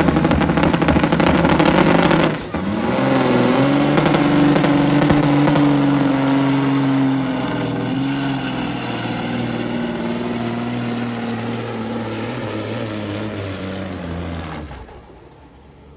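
Semi truck diesel engines working hard under load while pulling a weight-transfer sled, with a high whine climbing over the first two seconds. The sound breaks off sharply about two and a half seconds in, and a steady engine drone follows, slowly weakening and dropping away near the end.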